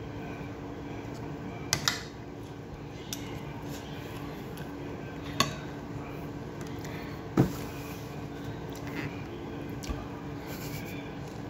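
Cutlery clicking against a plate a few times during a meal, with the sharpest knock a little past halfway, over a steady low hum.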